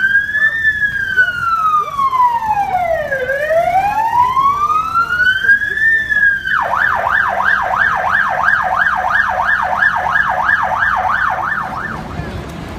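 Police van's electronic siren sounding. It gives a slow wail that sweeps down and back up, then switches about two-thirds through to a fast yelp of about three sweeps a second, which cuts off near the end.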